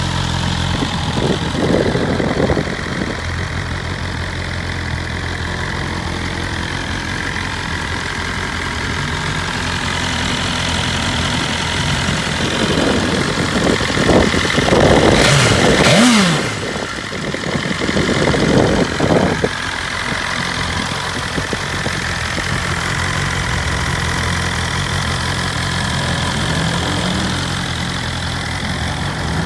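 BMW S 1000 RR's 999 cc ShiftCam inline-four idling steadily. About halfway through there are a few short throttle blips, with the revs falling back to idle.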